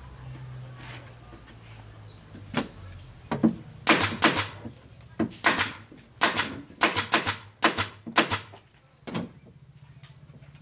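A run of about fifteen sharp knocks on the wooden subwoofer box as it is being assembled, coming singly and in quick pairs and clusters for about six seconds. A faint steady hum sits underneath.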